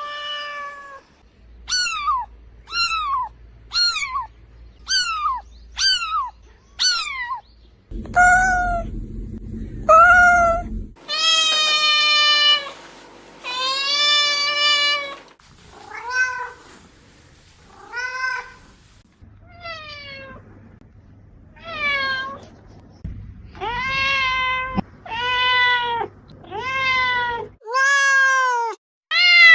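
Cats meowing over and over. First come short high meows about a second apart, each falling in pitch, then a few longer drawn-out meows, then meows closer together near the end. The background noise shifts between meows from different recordings.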